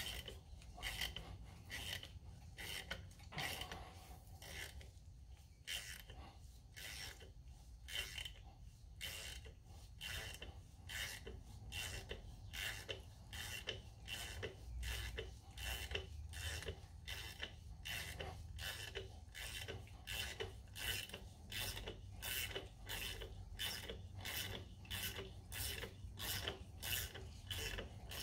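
Ratchet wrench clicking in an even rhythm, about two to three clicks a second, as it turns the forcing screw of a camshaft gear puller drawing the cam gear off a DT466E's camshaft.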